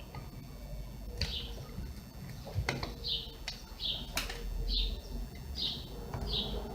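A small bird chirping over and over, short high chirps about once a second, with a few sharp clicks of tools or parts being handled.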